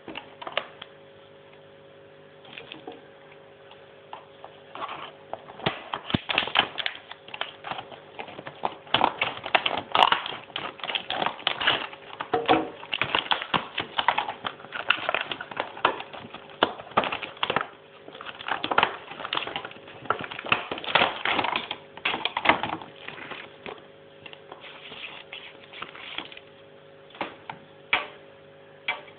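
Plastic parts of a foldable laptop cooling fan pad clicking and rattling as it is handled, in fast irregular clusters over a faint steady hum; the clicks are densest in the middle and thin out near the end.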